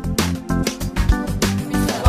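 Upbeat song with a steady beat and acoustic guitar, instrumental with no singing.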